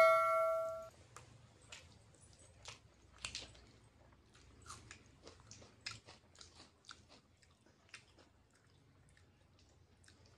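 Close-up chewing of a mouthful of noodles, with soft, scattered wet mouth clicks. A bell-like chime sound effect fades out in the first second.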